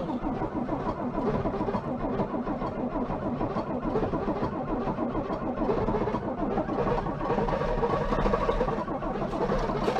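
Starter motor cranking the 1957 Volvo TL22 truck's engine in a steady, even rhythm, without the engine firing.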